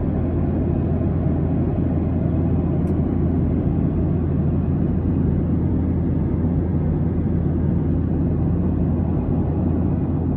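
Steady cabin noise of a Lion Air Boeing 737 jet airliner in cruise flight: the even rush of engines and airflow over a strong low hum.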